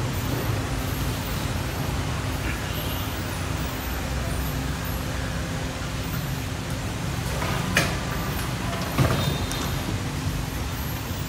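Roofing-sheet production machinery running with a steady hum. Steel sheets are handled on the run-out table, with two sharp metallic clanks about eight and nine seconds in.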